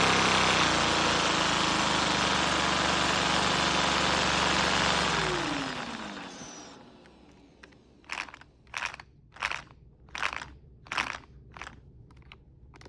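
Supercharged turbine engine running with a loud hiss, then spinning down in a falling pitch and stopping about five seconds in. After it stops, about seven short crunching sounds come at an even pace, a little over one a second.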